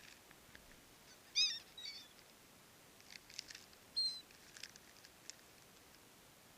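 Gulls calling: a few short, high calls, the loudest about a second and a half in and a brief one about four seconds in, with scattered faint clicks between them.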